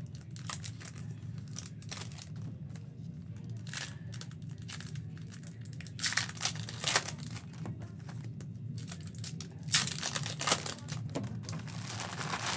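Foil wrapper of a Topps trading-card pack crinkling and tearing as it is opened by hand, in irregular crackles that are loudest about six and ten seconds in.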